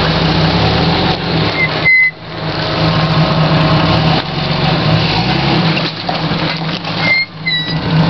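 Jeep Cherokee XJ engine running at low speed as the lifted Jeep crawls over rocks, with a few short high squeaks about two seconds in and again around seven seconds.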